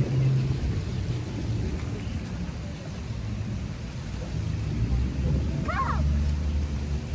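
Wind buffeting the microphone: a heavy, uneven low rumble that swells and fades. A brief rising call cuts through about six seconds in.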